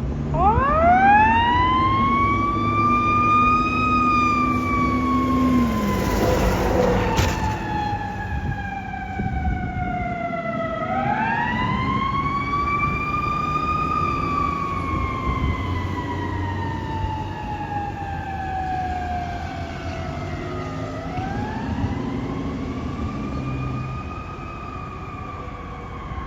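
Fire truck siren in a slow wail: it climbs quickly to a high pitch and then falls slowly over several seconds, winding up again about eleven and twenty-one seconds in, over the low rumble of the truck's engine. A short hiss cuts in about six seconds in.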